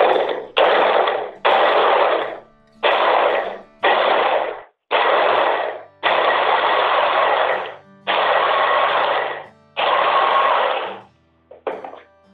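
Electric mini chopper run in about nine short pulses of a second or so each, its blades chopping carrot and garlic pieces.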